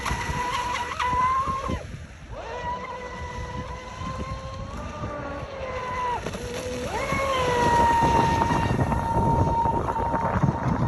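Pro Boat Sonic Wake 36 V2 RC boat's brushless motor whining at speed over the water. The whine drops away twice, about two and six seconds in, as the throttle comes off, and winds back up in pitch each time.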